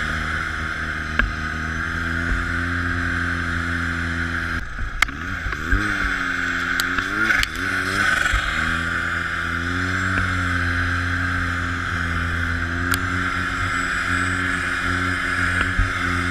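Snowmobile engine running at speed under the rider, with a steady rush of track and wind noise. About five seconds in the throttle eases: the engine note dips, swings up and down twice, then settles back to a steady pull. A few sharp ticks are heard along the way.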